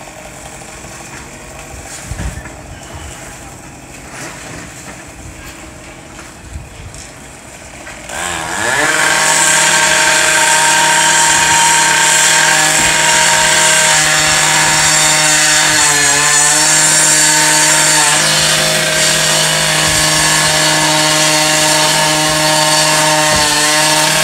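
A firefighters' gas-powered saw starts up about a third of the way in with a rising whine, then runs loud and steady at high speed, wavering briefly a couple of times. This is a roof saw being run to cut a ventilation opening over the fire.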